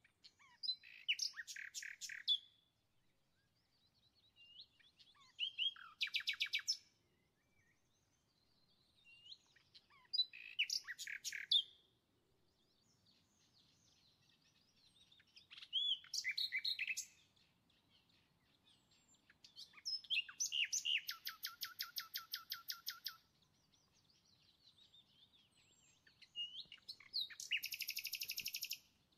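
A songbird singing in separate phrases, six of them about five seconds apart. Each phrase is a quick run of high chirps, most ending in a fast trill; the longest trill comes about two-thirds of the way through.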